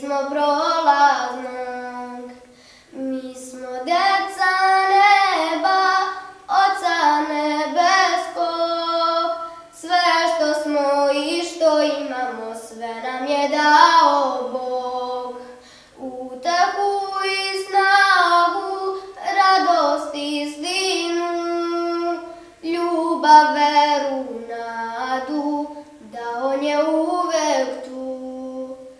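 A single high voice singing a slow melody unaccompanied, in phrases a few seconds long with short breaks between them.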